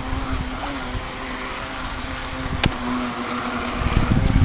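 Electric motor of a 9.6-volt, 16-inch Tornado RC boat running at speed across the water, a steady whine over the splash of its wake. There is a single sharp click near the middle, and a low rumbling builds near the end.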